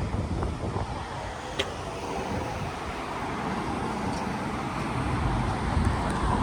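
Road traffic running steadily past, with a short click about a second and a half in.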